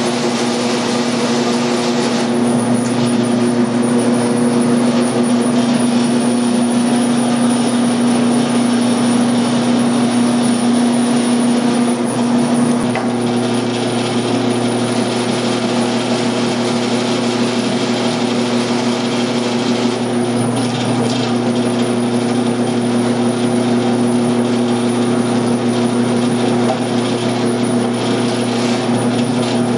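Electric meat grinder's motor running with a steady hum, driving ground meat through a stuffing tube into a summer sausage casing.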